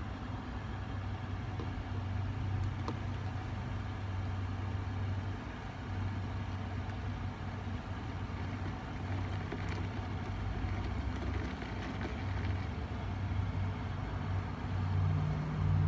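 A steady low machine hum, with no clear events over it.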